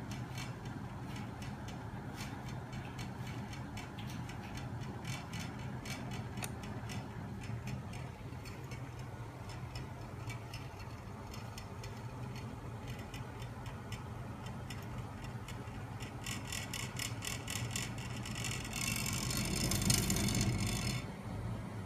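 Homemade magnet-and-crankshaft machine running, its rocker arms and springs making rapid, steady clicking over the steady hum of the 12 V DC electric motor that drives it. Near the end the motor's whir swells louder for a couple of seconds.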